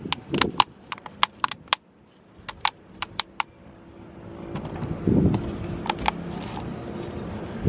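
Thin plastic bottle used as a seedling pot crackling and clicking as hands squeeze and roll it to loosen the soil and seedling inside: a quick run of sharp clicks in the first few seconds, a duller rustle about five seconds in, and a few more clicks shortly after.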